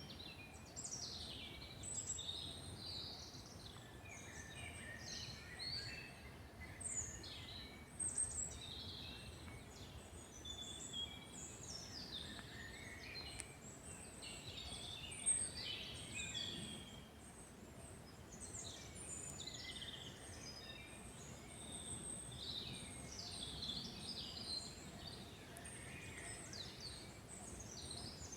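Several songbirds singing and chirping over one another, with many short trills and whistles, over a faint steady background hiss.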